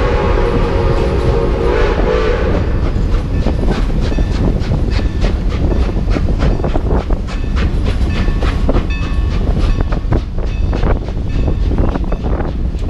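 Milwaukee Road 261's chime steam whistle sounding one long blast over the first couple of seconds, then the moving train's wheels clattering and clicking on the rails with a heavy low rumble.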